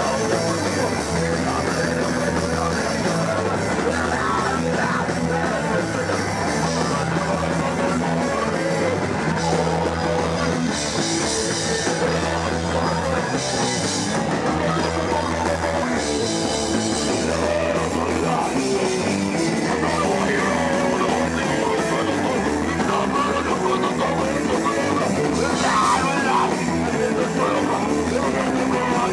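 A live punk band playing loudly: electric guitar, bass and a drum kit with cymbals, heard through the camera's microphone close to the drums.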